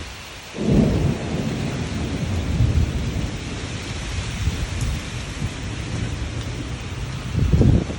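Steady heavy rain, with low rumbles swelling up twice, about a second in and again near the end.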